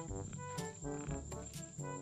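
Background music: a tune of short notes changing several times a second over a bass line with a steady beat.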